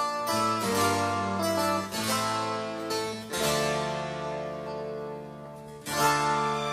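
Background instrumental music: chords struck one after another and left to ring out, with a fresh strike about six seconds in.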